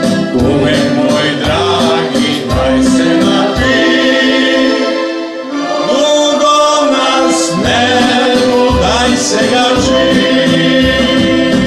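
A song sung by several voices, with instrumental backing and a steady beat.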